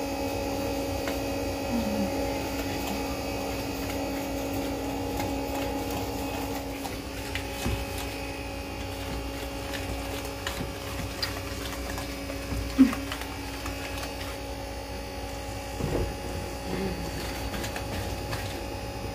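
A whisk stirring brownie batter in a stainless steel bowl, with a few faint clinks and one sharper knock about thirteen seconds in. A steady electrical hum runs underneath.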